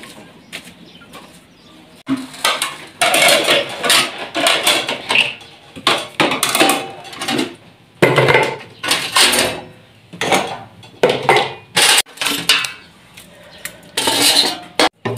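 Metal pots and utensils clattering and scraping, in a rapid irregular series of clashes that starts about two seconds in.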